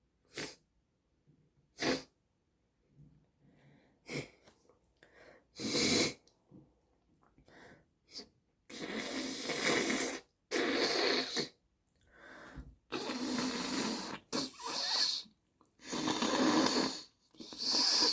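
A person with a congested, snotty nose blowing it into a handkerchief. There are four short, sharp blows in the first six seconds, then a run of about six long blows of a second or so each.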